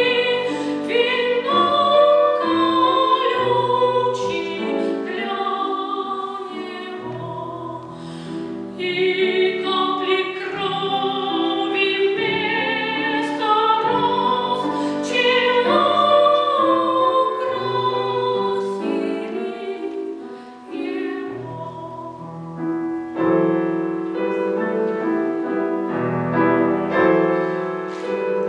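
A child singing in classical, academic style with vibrato, accompanied by piano.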